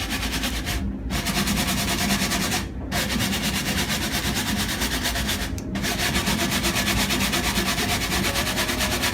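Rapid back-and-forth scrubbing on a microwave's surface, working at hard-water spots with cleaner, stopping briefly three times.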